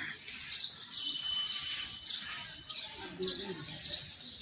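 Small birds chirping: short, high chirps repeating about twice a second.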